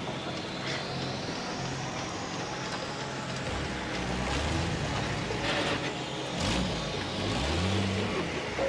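Film soundtrack: a modified GMC M211 army cargo truck's engine labouring at low revs under a steady rushing hiss of heavy rain. The engine swells about halfway through and again near the end, with a few sharp knocks and creaks in between.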